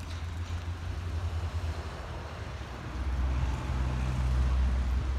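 An engine running with a steady low rumble, growing louder about three seconds in.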